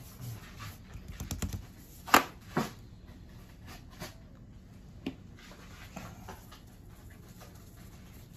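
Kitchen handling noises while a raw roast is seasoned in a pan: a scatter of sharp clicks and knocks, the loudest two about two seconds in and half a second apart, with fainter ones after.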